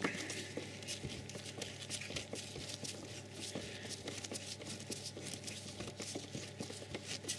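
Flat-blade screwdriver turning the worm screw of a Jubilee clip (worm-drive hose clamp) to slacken it, giving faint, irregular small clicks over a steady low hum.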